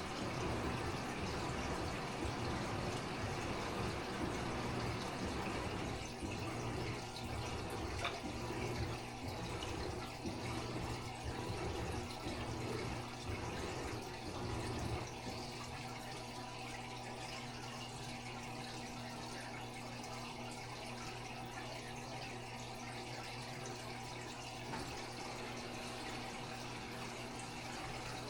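Aquarium water running and trickling over a steady hum, typical of a fish tank's filter. A low rumble underneath stops about halfway through, leaving the steady trickle and hum.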